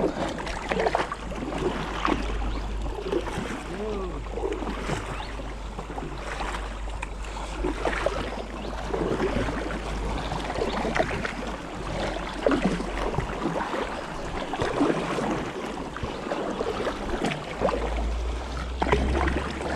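Kayak paddle blades dipping and pulling through river water in repeated strokes, roughly one a second, with splashing and dripping between them. A low rumble of wind on the microphone runs underneath.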